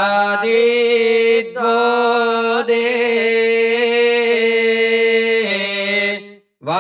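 A man chanting a Vedic mantra into a microphone, sung in long, steady held notes with only brief breaths; the tone drops a step near the end of the phrase before he pauses.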